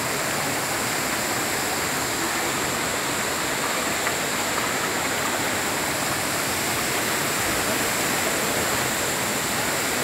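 Steady rushing noise of a tall waterfall and the stream running over boulders below it.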